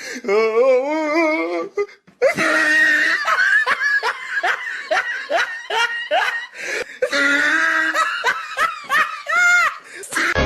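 A person laughing hard: a wavering drawn-out laugh, then long runs of quick repeated bursts of laughter.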